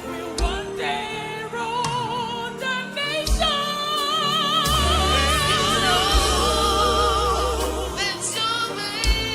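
Gospel worship singing with a band: voices holding long notes with vibrato over a deep bass, with a low drum hit about every three seconds.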